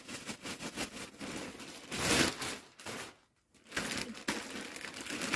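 Plastic mailer bag and clear plastic garment wrapping crinkling and rustling as a package is opened and a hoodie is pulled out. The crinkling is loudest about two seconds in, with a short silent break about three seconds in.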